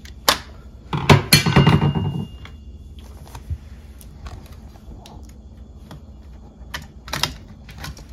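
A screwdriver and small metal parts clicking and rattling at a dishwasher's sheet-metal electrical junction box. About a second in there is a loud burst of metallic clatter that rings briefly, then scattered single clicks.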